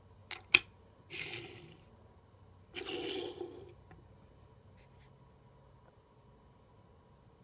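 Two sharp clicks, then two brief scraping rubs about a second and a half apart: a die-cast Hot Wheels car being set down and slid into place on a flat surface.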